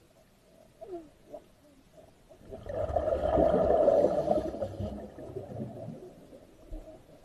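Scuba diver exhaling through the regulator underwater, a burbling rush of bubbles lasting about three seconds that fades out. A couple of faint short squeaks come about a second in.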